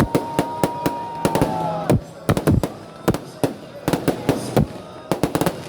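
Festive fireworks display: a rapid, irregular series of loud bangs from bursting shells and crackers, with a held whistling tone in the first two seconds.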